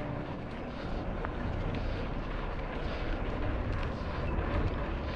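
Steady noisy rumble of a mountain bike being ridden along a dirt trail: tyres rolling on the ground, with wind on the microphone.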